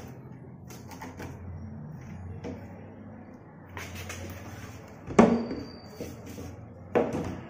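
Low handling and rustling, then two sharp wooden knocks about two seconds apart, the first the louder, as the cloth grille is pulled off a wooden tower speaker cabinet.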